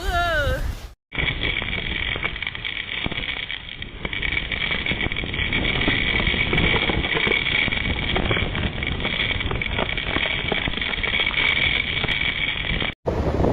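Steady rushing storm noise from typhoon footage, with no clear pitch and a low rumble, cut off suddenly about a second in and again near the end.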